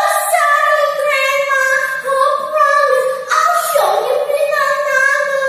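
A girl singing solo and unaccompanied, in long held notes that slide from one pitch to the next.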